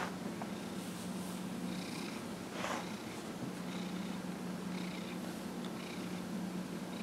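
Domestic cat purring steadily while being massaged, with a brief rustle about three seconds in.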